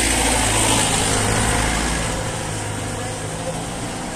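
A motor vehicle's engine running steadily, louder for the first two seconds and then fading.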